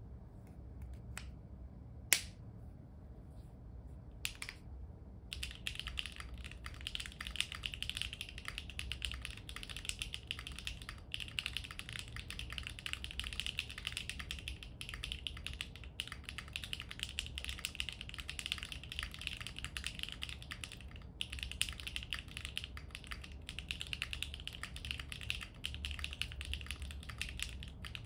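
Typing on a foamless, gasket-mounted Neo Ergo Arisu mechanical keyboard with HMX x GEON Raptor MX Extreme linear switches and doubleshot ABS keycaps. A few separate key presses come first, then about five seconds in a fast, continuous stream of keystroke clacks begins.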